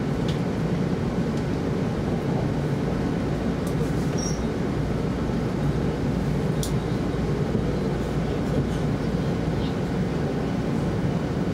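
Steady running rumble of an E2 series 0 Shinkansen train heard inside the passenger cabin, with a few faint clicks.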